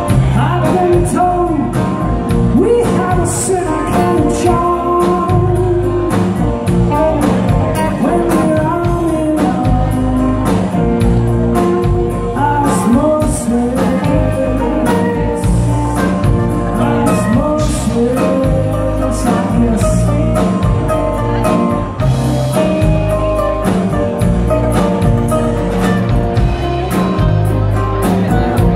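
Live band playing an original rock song: a male lead vocal over electric guitars, keyboard and drums.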